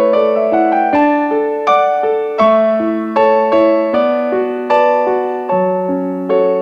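Piano music: a slow, gentle melody of single struck notes, a new note about every three-quarters of a second, over held lower notes.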